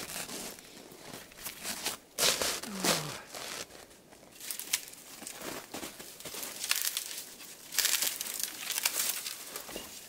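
Footsteps crunching irregularly on a frozen snow crust, with a short falling whine about three seconds in.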